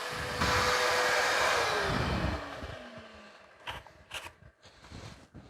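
2x72 belt grinder running while the ends of pinned knife handle scales are ground flush, louder for about two seconds, then switched off, its motor whine falling in pitch as the belt winds down. A couple of short knocks follow.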